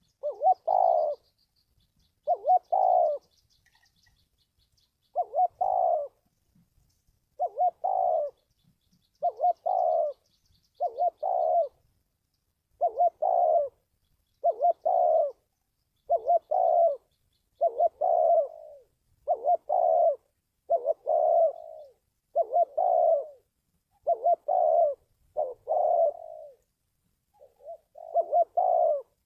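Spotted dove (chim cu gáy) cooing over and over, each phrase a short run of low coo notes, repeated every couple of seconds. Faint high chirping is heard in the first few seconds.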